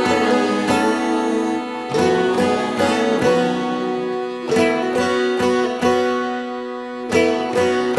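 Instrumental break in a song: a plucked string instrument picks a run of single notes, several a second, each starting sharply.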